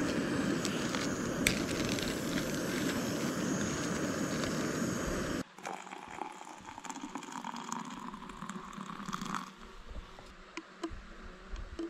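Portable gas camp stove burner running with a steady rushing sound, heating water for coffee, with a few small clicks; it cuts off abruptly about five seconds in, leaving faint quiet outdoor ambience.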